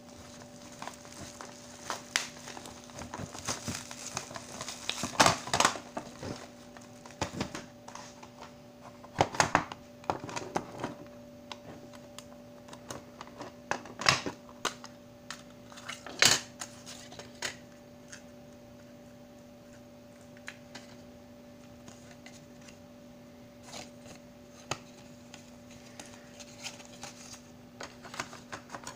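Plastic cassette tape cases clicking and clacking against each other and the bench as they are handled and unwrapped from bubble wrap, in irregular bursts with several sharp clacks in the first half, then quieter handling. A faint steady hum runs underneath.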